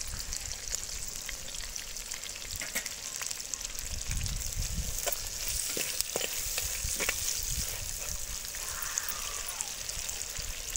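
Sliced onions and green chillies sizzling in hot oil in an earthen clay pot while a steel ladle stirs them, with a few sharp clicks in the middle. This is the early frying of the onions for the biryani base.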